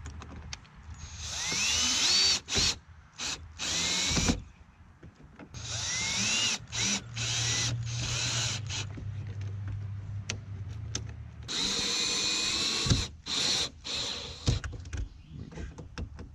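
Power drill driving the mounting bolts of an RV door lock assembly. It runs in three main runs of a second or more, with short trigger blips between them, and the motor whine rises in pitch as each run starts.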